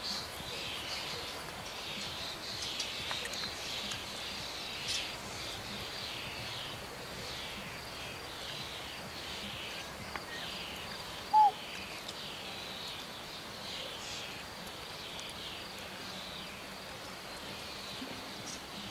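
Countryside field ambience: a steady run of high, repeated chirps throughout, with one short, loud whistle-like note about eleven seconds in.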